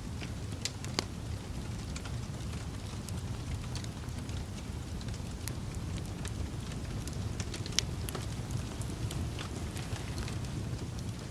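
Campfire burning with a steady low rush and scattered sharp crackles and pops, two of them louder, about a second in and near eight seconds in.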